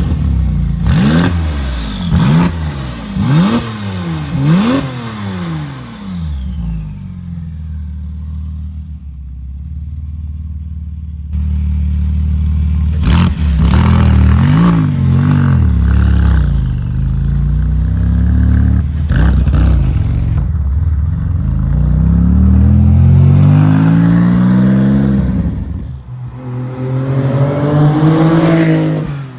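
Porsche 997 Turbo Mk1's twin-turbo flat-six through a Capristo valved exhaust. It opens with four quick throttle blips about a second apart, each with sharp cracks, then settles to a steady idle. After that come further revs and long climbs in revs, one cut off by a sudden drop in pitch.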